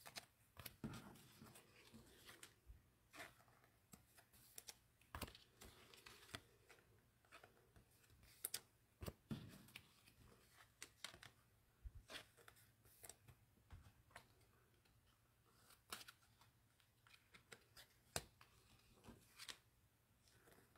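Faint, irregular clicks and short rustles of trading cards and pack wrappers being handled, with a faint low hum underneath.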